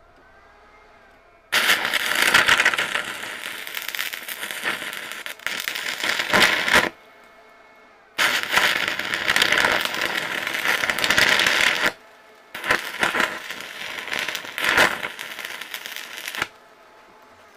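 Stick (arc) welding: the electrode's arc crackling and spitting in three runs of several seconds each, with short breaks between them, as rebar is tack-welded to a steel plate.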